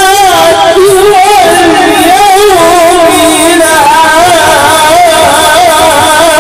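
A male voice singing salawat solo through a microphone and PA loudspeaker. It holds a long melismatic line full of fast wavering ornaments.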